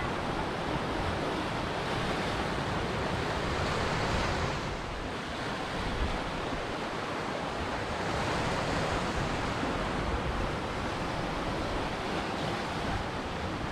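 Ocean surf: waves breaking and washing in a continuous rush, easing briefly about five seconds in before building again.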